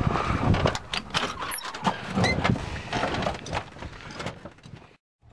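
Clicks, knocks and rattles of people climbing into a small plane's cabin and settling in, a dense run of small handling sounds that stops abruptly near the end.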